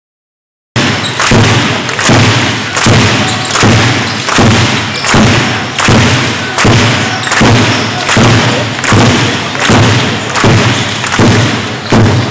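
A loud, steady beat of heavy thumps, about three every two seconds, starting under a second in, with the thumps ringing in a large hall.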